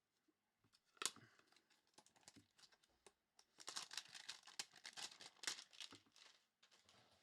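A Select hanger pack of trading cards being torn open: a sharp rip about a second in, then a few seconds of crinkling and tearing of the wrapping.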